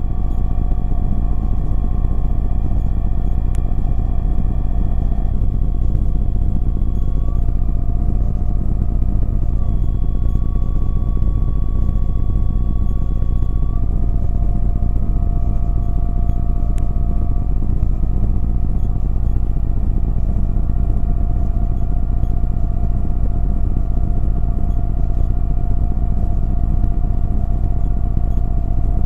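Halley Apollo Fox microlight's engine and propeller droning steadily in flight, heard from the cockpit. A few faint thin tones above the drone step up and down in pitch a few times.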